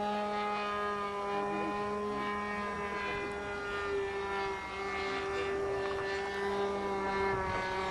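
Magnum 10cc internal-combustion engine of a Ripmax Bossanova RC model airplane running steadily in flight, a propeller buzz that holds one pitch throughout.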